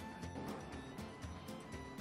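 Background music with a steady beat and held low notes.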